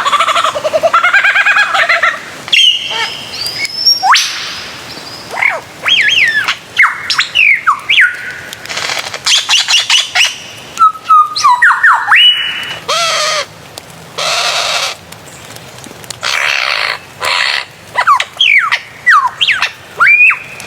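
Bird calls: a varied run of short whistled chirps and slurred notes sliding up and down in pitch, broken every few seconds by harsh, raspy screeches.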